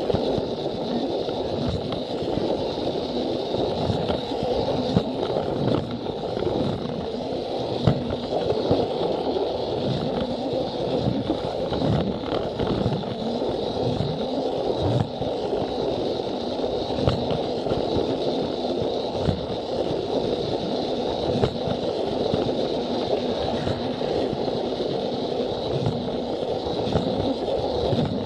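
Plarail toy train running along plastic track: the battery motor and gearbox keep up a thin steady whine while the wheels rattle on the rails, with scattered clicks, heard from a camera riding on the train.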